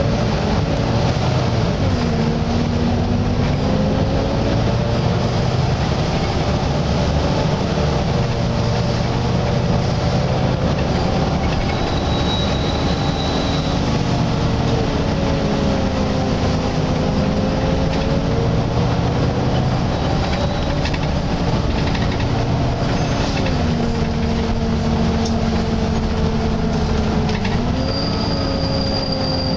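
Volvo B9TL double-decker bus on the move, heard from inside the upper deck: the engine cooling fan gives a steady whine, the 'hoover' sound, over the engine and road rumble. The whine shifts down and back up in pitch a few times, and a short high whistle sounds twice.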